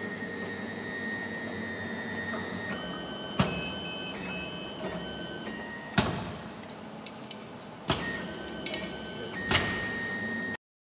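GM35 automatic wire cut-and-strip machine and its motorized two-bowl coiler running: a steady motor whine and hum whose pitch shifts a few times, with four sharp clacks of the mechanism a couple of seconds apart. The sound cuts off abruptly near the end.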